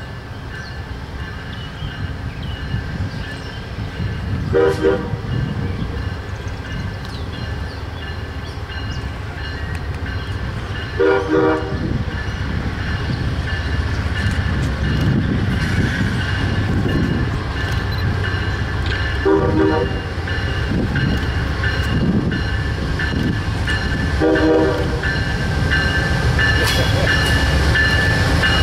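Amtrak GE Genesis diesel locomotive sounding its horn in four short blasts, several seconds apart, as its passenger train approaches. Under the horn, the train's rumble grows louder, and a steady high whine comes in over the second half as the train draws close.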